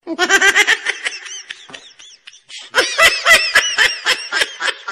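A woman laughing in quick, high-pitched pulses, in two bouts: a short one at the start and a longer one from a little past halfway.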